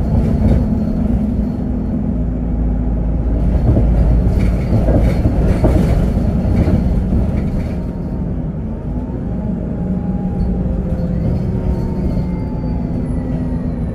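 Inside a 2018 Otokar Vectio C city bus under way: its Cummins ISB6.7 diesel and Voith four-speed automatic drivetrain run with a steady low rumble, and the body and fittings rattle over the road from about four to seven seconds in. In the second half, faint whining tones glide slowly in pitch.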